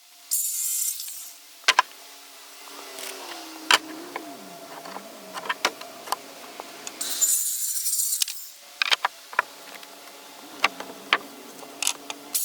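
Saw cutting through wood in short strokes of about a second, a few seconds apart, with clicks and knocks of boards and tools in between.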